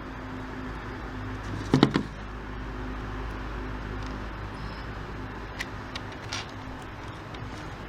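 Hard small objects being handled on a work surface: one sharp clatter about two seconds in, then a few light clicks, over a steady low rumble of background noise.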